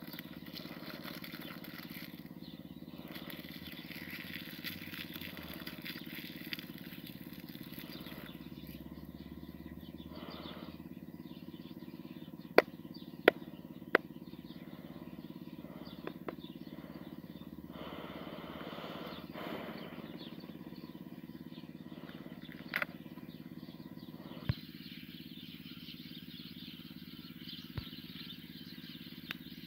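Hands unwrapping and opening a cardboard cigarette pack: the wrapper and pack rustle and crinkle, with a few sharp clicks. Three come in quick succession near the middle. A steady low hum runs underneath.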